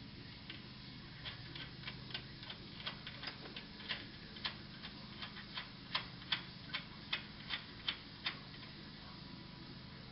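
Ratchet wrench clicking as it turns a winch mounting bolt: single clicks, about two or three a second, getting louder and stopping about eight seconds in.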